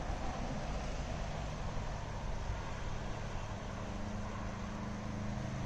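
Shallow river water rushing steadily over rocks and riffles, with a low steady hum coming in about halfway through.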